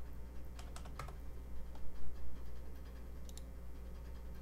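A few scattered keystrokes on a computer keyboard as a number is typed into a field, over a steady low hum.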